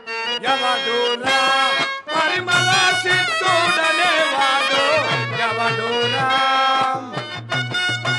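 Harmonium accompaniment playing a melody in sustained reedy notes, with a steady low beat coming in about two and a half seconds in.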